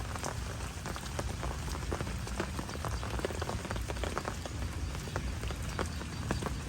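Rain falling, with many small drops ticking irregularly over a steady hiss and a low rumble.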